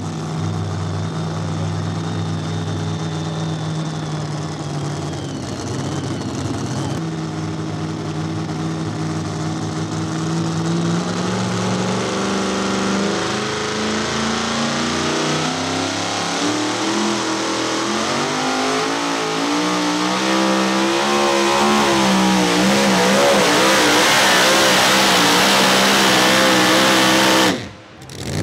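Supercharged, alcohol-burning big-block engine of a super modified two-wheel-drive pulling truck, running steadily at first, then revving up with rising, wavering pitch and growing louder as it pulls the sled. The sound cuts off abruptly near the end.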